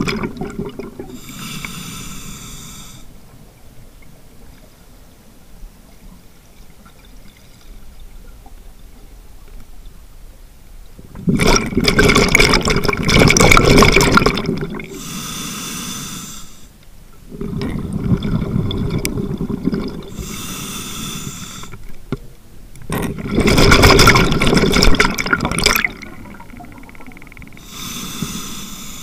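Scuba diver breathing through a regulator, heard from the mask on the diver's own face: slow cycles of a high hissing inhalation followed by a loud rush of exhaled bubbles, several times over.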